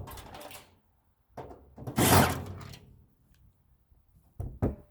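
Sheet-metal furnace parts scraping and sliding as a large part is pulled off, with a long scrape about two seconds in, then two sharp metal knocks near the end.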